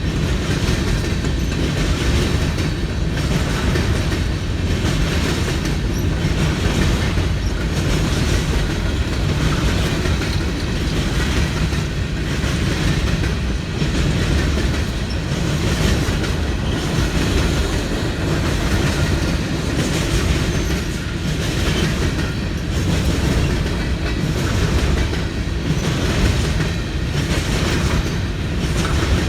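CSX freight train rolling steadily past, its wheels clicking over rail joints in a continuous clickety-clack over a low rumble.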